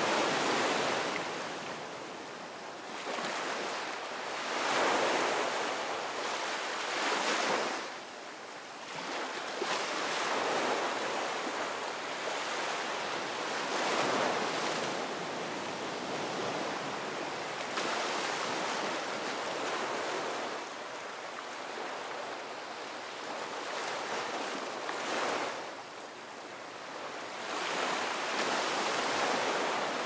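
Gentle waves breaking and washing up a beach: a steady surf hiss that swells and eases every few seconds as each wave comes in.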